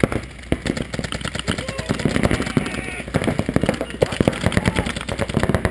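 Paintball markers firing in rapid, overlapping strings of sharp pops, with hardly a gap between shots.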